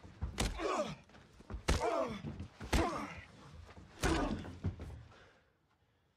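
Punches landing in a film fist fight: four heavy thuds about a second apart, each followed by a man's short groan falling in pitch. The blows stop and the sound fades away about five seconds in.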